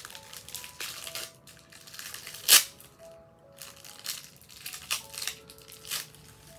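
Small clear plastic parts bag crinkling and rustling in the hands, with short clicks and one sharp snap about two and a half seconds in. Soft background music with a simple melody plays underneath.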